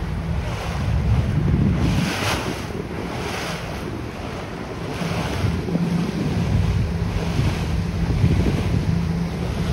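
Wind buffeting the microphone in repeated gusts over the steady drone of a boat engine running at trolling speed, with sea water washing past.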